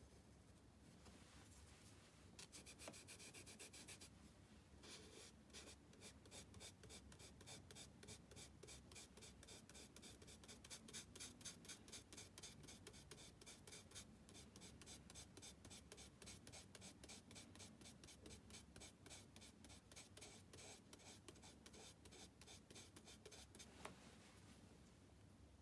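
Charcoal scratching on sketchbook paper in a long run of quick, even, faint strokes, stopping shortly before the end.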